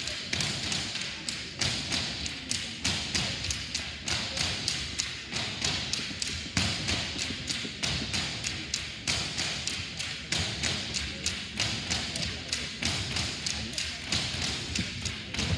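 Tinikling poles struck against the wooden gym floor and clapped together, sharp wooden taps in a steady repeating rhythm, a few strokes a second.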